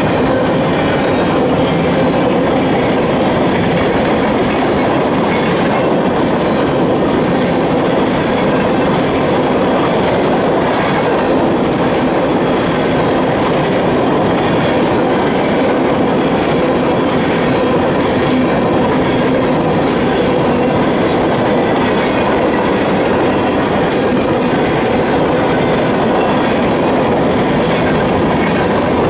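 Railroad covered hopper cars rolling past on a freight train, steel wheels on rail making a loud, steady rumble with the clickety-clack of the wheel trucks.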